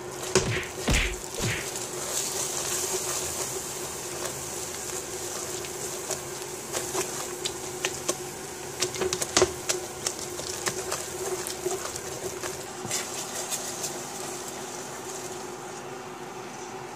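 A plastic masher and then a wooden spoon stirring and pressing thick risotto in a metal pot: irregular scrapes and knocks of the utensil against the pot, loudest in the first second and again about nine seconds in, over a steady hum.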